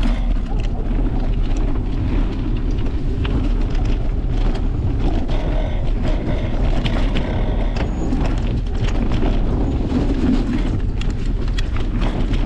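Mountain bike riding along a dirt trail: steady low wind rumble on the action camera's microphone, with tyre noise on dirt and leaves and frequent rattles and clicks from the bike over the bumps.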